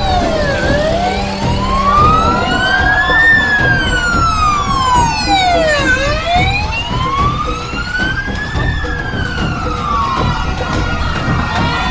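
Emergency vehicle siren wailing in slow sweeps, rising and falling twice, each cycle taking about five to six seconds, over a low background rumble.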